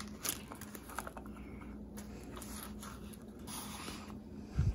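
Faint handling of a polymer holster shell and a neoprene ankle-holster pad. There are light plastic clicks and rustling, and a soft thump near the end.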